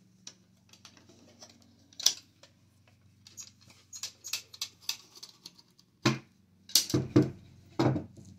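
A carved wooden chess case being handled on a table: a run of light clicks and taps, then four heavier wooden knocks near the end.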